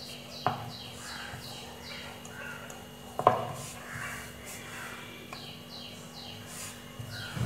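Wooden rolling pin knocking twice on a wooden rolling board while dough is rolled out, the second knock the louder. Behind it, a bird repeats short descending chirps about three times a second.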